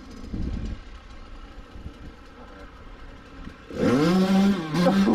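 Dirt bike engine, quiet and rumbling at first, then revving up loudly about four seconds in and holding at high revs.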